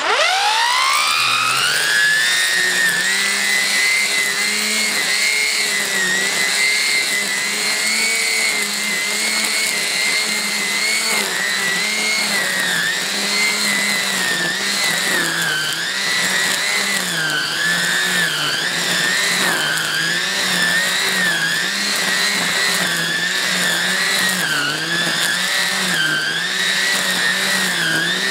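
Cordless Parkside PPFSA 40-Li A1 string trimmer's electric motor spinning up with a rising whine, then running at full speed, its pitch wavering as the freshly wound nylon line cuts grass.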